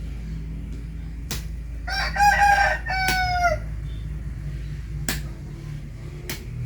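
A rooster crowing once, about two seconds in, its call ending on a falling note. A few sharp clicks or taps are heard before and after the crow.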